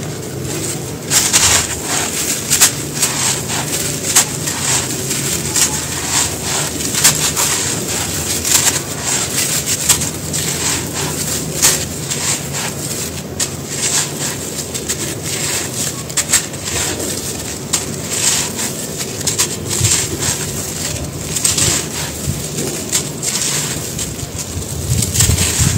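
Hands crushing and crumbling a dry, dusty pot-shaped block of crumbly stone-like material, with dense, irregular crunches and crackles as it breaks. Grit and powder pour through the fingers.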